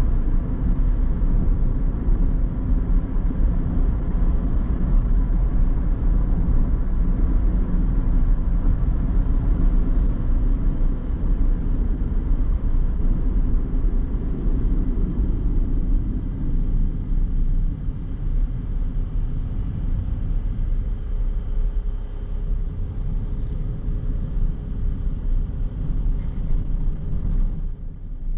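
Car driving on a road: a steady low rumble of engine and tyre noise that grows a little quieter in the second half.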